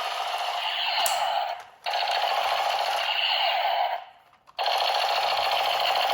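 Battery-powered toy machine gun's electronic rapid-fire sound effect rattling from its small built-in speaker, cutting out briefly twice, at about a second and a half and at about four seconds, as the trigger is let go and pressed again.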